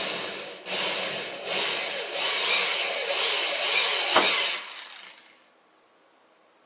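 Electric drill boring a hole through a small PVC pipe, running in a few bursts, with a sharp click about four seconds in, then winding down and stopping about five seconds in.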